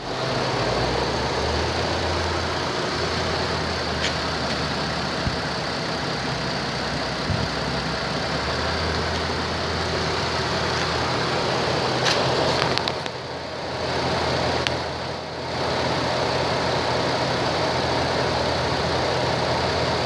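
2003 Chevrolet Trailblazer's Vortec engine running steadily at idle, with the sound dipping briefly twice past the middle.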